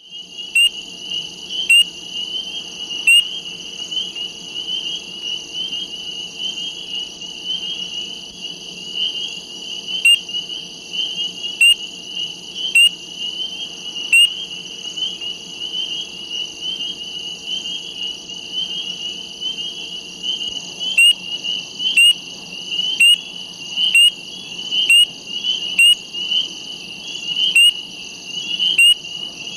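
Chorus of spring peepers: a dense, unbroken mass of high peeping calls. Louder single peeps from a nearer frog stand out over it, now and then at first, then about once a second in the last third.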